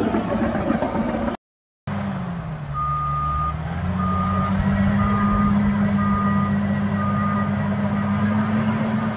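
Bulldozer's diesel engine running, the sound cutting out briefly about a second and a half in; it then backs up with its reversing alarm beeping about once a second, the engine note dipping and climbing again.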